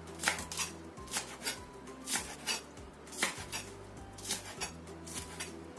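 Chef's knife chopping spring onions on a wooden cutting board: irregular knocks of the blade on the board, about two or three a second.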